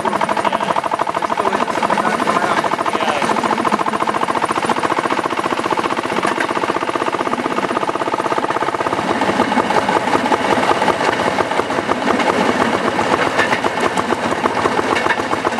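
Railway section car's small engine running as it travels along the track, a rapid, even firing with a steady whine over it that rises a little about six seconds in and turns rougher from about nine seconds on.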